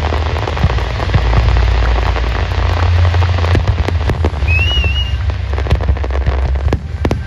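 Fireworks going off: a continuous din of deep booms and crackling, with many sharp pops in the second half. A brief wavering whistle comes about halfway through.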